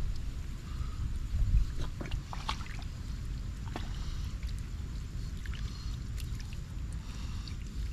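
Water sloshing and splashing in a shallow muddy pool as it is worked by hand, with scattered small splashes and one heavier slosh about a second and a half in, over a low steady rumble.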